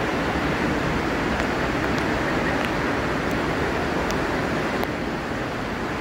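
Steady rushing of fast-flowing water from a swollen monsoon stream.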